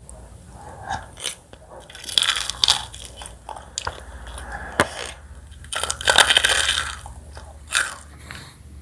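Close-miked eating sounds: irregular crunchy bites and chewing, with two longer crackly stretches.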